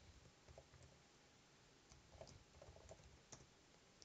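Faint computer keyboard typing: a few scattered key clicks, a little more frequent in the second half.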